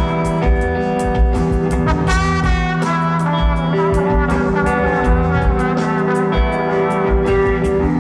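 Live band playing: a trombone holds a melody over electric bass and a drum kit.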